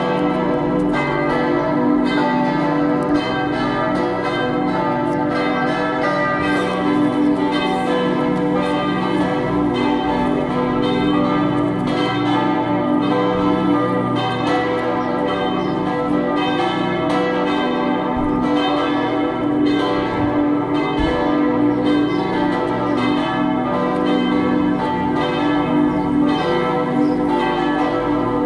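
Church bells swinging and ringing together in a continuous peal, their strokes overlapping without a pause.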